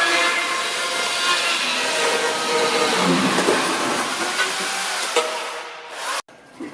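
Chainsaw running and cutting, its engine note wavering under load; it fades and stops abruptly about six seconds in.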